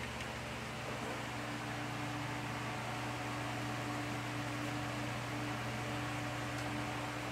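Steady mechanical hum with an even hiss from a machine running in the background, holding a constant low drone.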